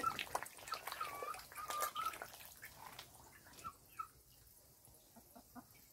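Catfish feeding at the surface of a pond, with many small splashes and pops as they snatch floating pellets, dying down after about three seconds. A few short chirping calls sound in the first two seconds.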